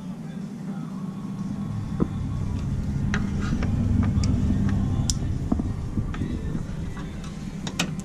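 A motor vehicle's engine rumble grows louder toward the middle and then fades. Short plastic clicks and rattles sound over it as the hood latch and its wiring connector are unclipped and handled.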